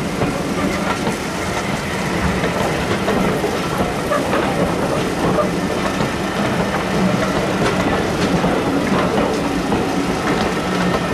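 Railway passenger coaches rolling steadily past, their wheels clicking over the rail joints.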